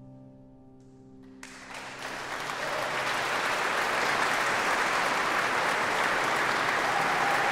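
A final held chord fades away, then audience applause starts about a second and a half in and quickly swells into steady clapping.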